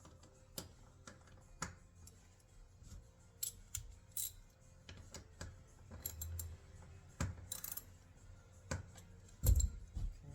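Scattered light clicks, taps and clinks of door trim pieces and tools being handled and fitted, with a heavier thump about nine and a half seconds in.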